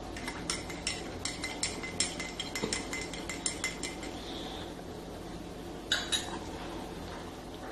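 A spoon stirring sugar into a glass of water, clinking rapidly against the glass for about three and a half seconds. Two sharper clicks come about six seconds in.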